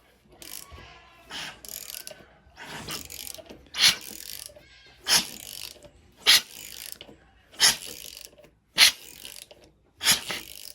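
Freshly reassembled Mazda 13B rotary engine being turned over by hand with a ratchet, a series of short ratcheting, grinding strokes about every second and a quarter, stronger from about four seconds in.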